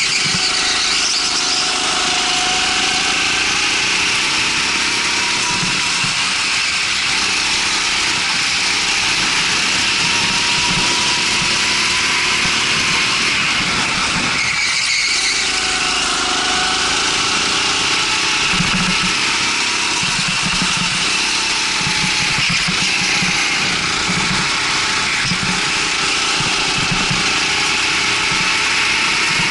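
Rental go-kart engine running hard, its pitch dropping and climbing back up near the start and again about halfway through, over a steady hiss.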